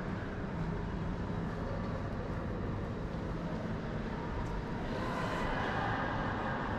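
Steady ambient rumble and hiss of a large industrial hall, with no distinct events; the noise grows a little brighter about five seconds in.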